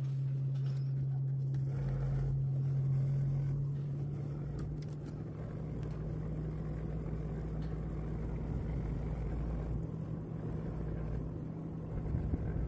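System air conditioner unit running after cleaning with a steady low hum and a deeper rumble that joins about two seconds in and comes and goes, the noise likened to a diesel engine.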